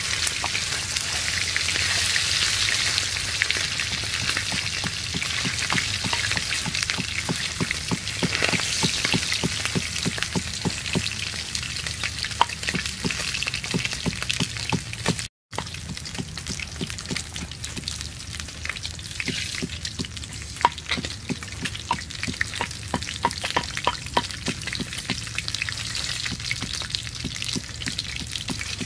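Catfish frying in hot oil in a wok: a steady sizzle with many small crackling spatters, and a wooden spatula stirring and scraping in the pan. The sound cuts out for an instant about halfway through.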